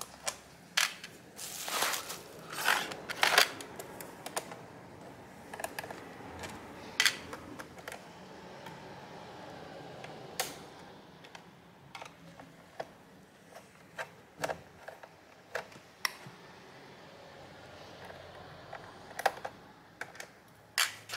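Irregular clicks and light taps of a small screwdriver and tweezers on screws in a laptop's plastic bottom cover, with quieter handling noise between, as stuck screws are worked loose and lifted out.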